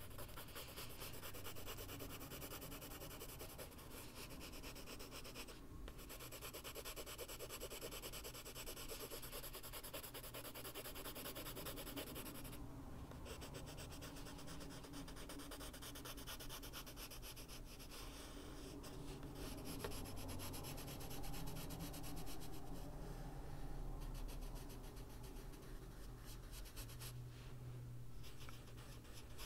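Faber-Castell Polychromos coloured pencil rubbing on a colouring-book page in quick, short shading strokes. It makes a steady, soft scratching, with a few brief breaks where the pencil lifts.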